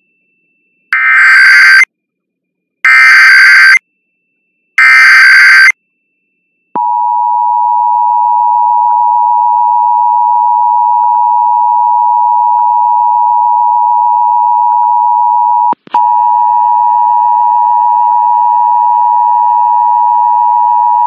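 Emergency Alert System test signal: three short bursts of SAME header data tones, each about a second long and about two seconds apart. About seven seconds in the steady two-tone EAS attention signal (853 and 960 Hz) begins. It breaks off for a moment near sixteen seconds and resumes with extra overtones.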